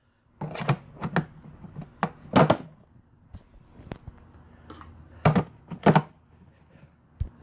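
Several sharp knocks and thumps, coming in three pairs about half a second apart, from handling a plastic ice chest and its lid.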